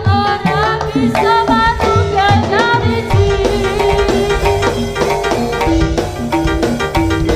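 Live Javanese jaranan music: hand drums beating quickly under a wavering high melody line and repeated melodic notes. A heavier bass beat joins about three seconds in.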